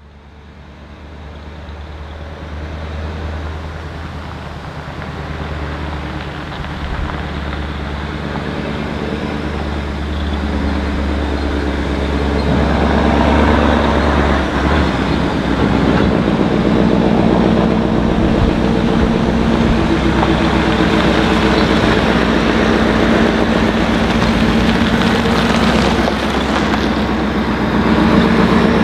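Scania R143E 500's V8 diesel engine running with straight pipes as the truck pulls a wide load. It grows steadily louder over the first dozen seconds as the truck approaches, then holds loud and steady.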